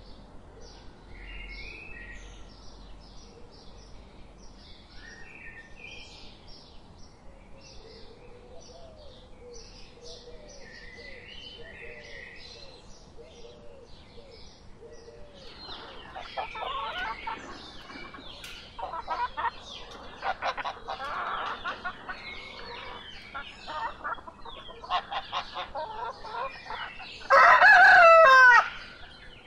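Faint chirping of small birds, then a stretch of louder, busier animal calls, and near the end a rooster crowing once, the loudest sound here.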